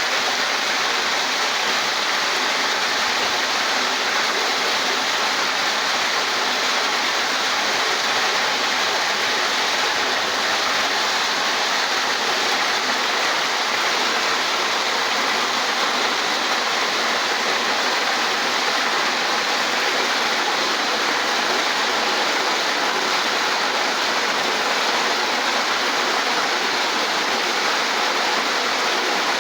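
Walnut washing machine running with a steady, unbroken rush of water as it washes the nuts.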